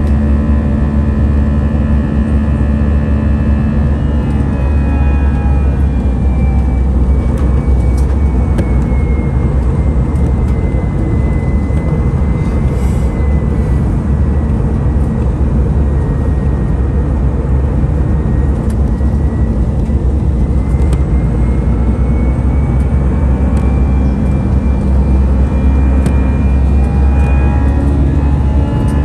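Steady cabin roar of an Airbus A319's CFM56 turbofan engines during the climb after takeoff, with a strong low hum. A faint high whine slowly sinks in pitch and comes back up near the end.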